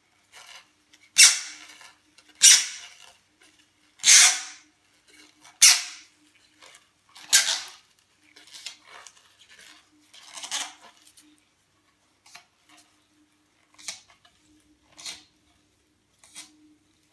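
Surface finishing tape being pulled off its roll and wound in overlapping layers around a carbon pole section: a string of short, sharp peeling noises about every second and a half, louder in the first half and fainter toward the end.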